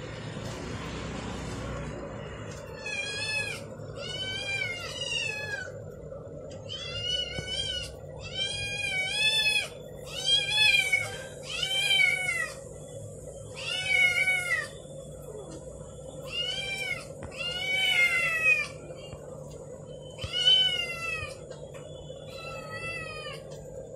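Kitten howling: about a dozen loud, high meows, each rising and falling in pitch, one every second or two, starting a few seconds in.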